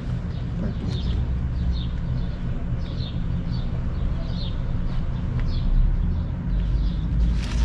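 A small bird chirping over and over, short falling notes about twice a second, over a steady low hum.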